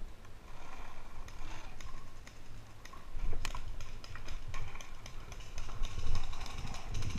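Irregular clicks and pops of paintball play, with one sharper crack about three and a half seconds in, over a low rumble.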